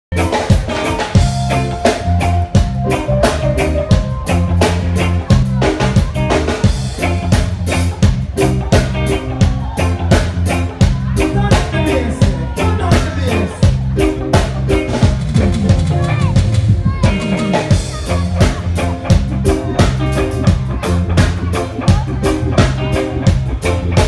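A live band playing with a steady beat: drum kit, electric bass, electric guitar and keyboards.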